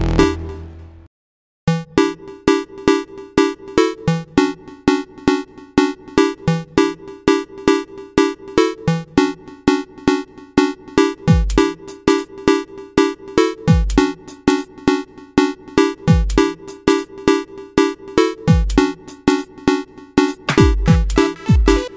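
Electronic background music with a steady drum-machine beat and deep bass hits, breaking off briefly about a second in before the beat starts again.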